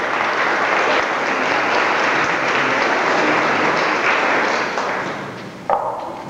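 A small group of people applauding, then dying away about five seconds in.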